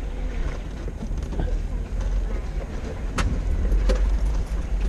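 Off-road vehicle driving over a rocky creek bed: a steady low rumble with sharp knocks about three and four seconds in.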